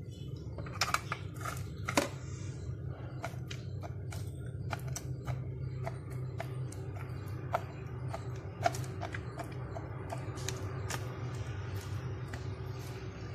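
Irregular sharp clicks, a few a second, of a metal utensil striking a plate as raw fish pieces are cut into to take the marinade, over a steady low hum.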